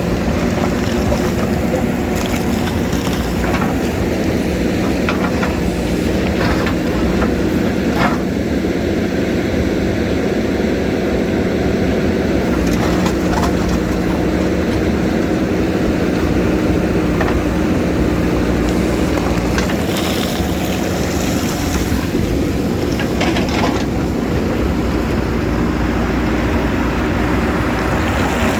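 JCB backhoe's diesel engine running steadily under work, with a few short sharp knocks scattered through, about a dozen seconds apart at first and then closer together.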